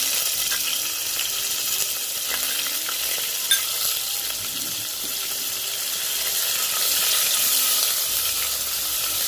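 Ginger-garlic paste sizzling in hot oil in a pressure cooker, along with mustard seeds, curry leaves and green chillies being fried for a tempering. It makes a steady crackling hiss with one sharp pop about three and a half seconds in, and is stirred with a wooden spatula near the end.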